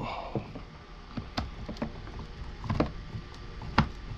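Irregular small clicks and taps of a screwdriver and hands working on a mini chainsaw's plastic housing, with a few sharper knocks.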